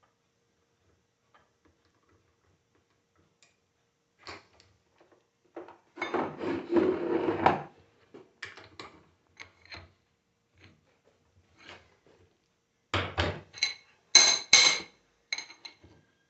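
Metal alternator parts being handled and knocked together during reassembly: scattered light clinks, a longer clatter about six seconds in, and a few sharp knocks with a ringing metallic tone near the end.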